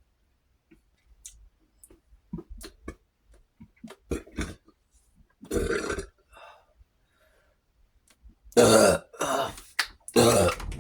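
A man burping after drinking carbonated cola: a series of separate burps, with faint clicks between them early on. The loudest two come back to back near the end.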